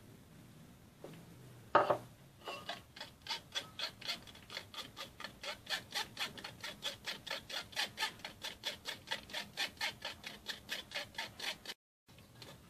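A metal spoon scraping lemon cream through a fine wire-mesh sieve in quick, even strokes, about four a second, after a sharp knock about two seconds in. The scraping cuts off suddenly near the end.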